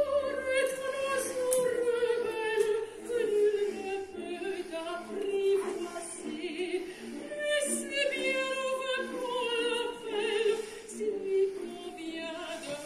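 Operatic singing with vibrato: two long phrases whose held notes drift slowly downward.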